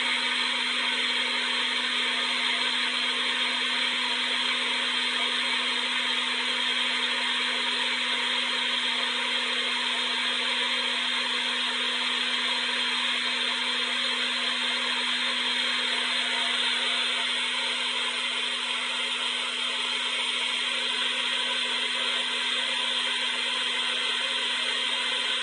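Electric hair dryer running steadily on one setting: an even rush of blown air over a constant motor hum, with no change in speed.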